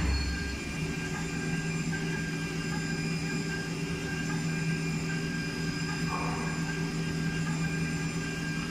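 CNC milling machine with a 1.5 kW high-speed spindle cutting a metal block under coolant mist. It makes a steady machine hum with several held tones. A brief low thud sounds at the start, and a short higher burst comes about six seconds in.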